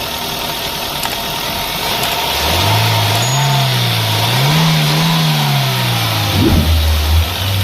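Toyota Corolla XLi engine blipped from idle, rising about two and a half seconds in and swelling twice in pitch before dropping back to a steady idle near the end.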